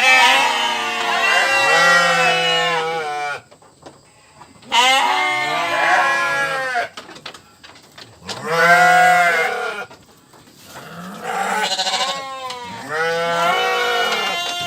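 Several bleating livestock calling over one another in four loud bouts, with short pauses between.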